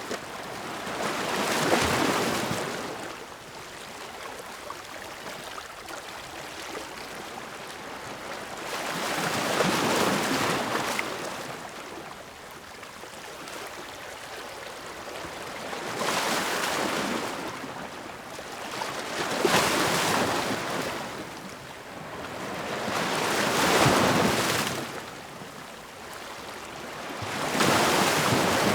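Ocean waves washing in one after another: about six swells of hissing surf, each rising and falling over a few seconds, with a steady softer wash between them.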